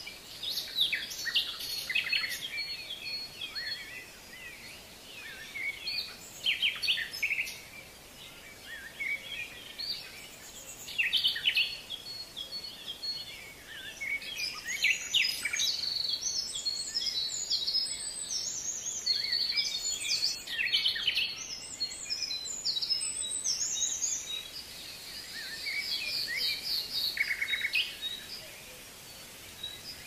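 Several songbirds chirping and singing in overlapping bursts, most continuous through the middle stretch, over a faint steady hiss.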